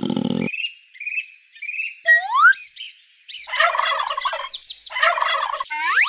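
Turkey gobbling twice, each a rapid warbling call under a second long, after a few short high chirps. A rising whistle-like glide sweeps up at about two seconds and again at the very end.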